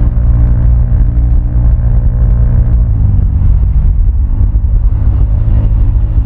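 Vespa scooter's single-cylinder engine running through a Prospeed black CNC aftermarket exhaust while riding. About halfway through, the engine note drops as the throttle eases off, then rises again near the end.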